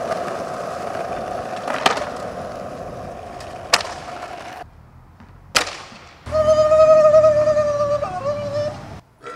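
Skateboard wheels rolling on smooth concrete with a steady hum, broken by two sharp clacks of the board about two and four seconds in. After a short quiet comes one more clack, then the loudest sound: a steady, high held tone with several overtones lasting nearly three seconds, its source unclear.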